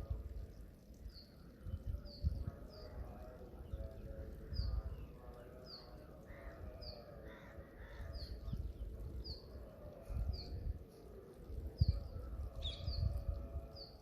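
Morning bird calls: a bird repeats a short, high, falling note about once every second, over fainter calls from other birds. Irregular low rumbles come and go underneath.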